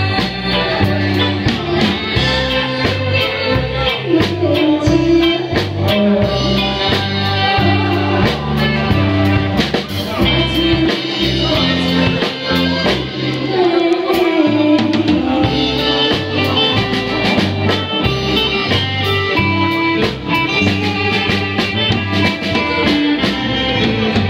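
A woman singing into a microphone over a live band playing a steady beat: electric bass guitar, saxophone, keyboard and drums.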